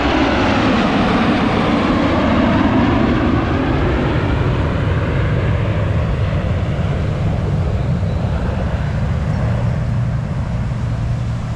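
Loud jet noise from Blue Angels F/A-18 Super Hornets passing, a continuous rumble that eases off slightly after a few seconds.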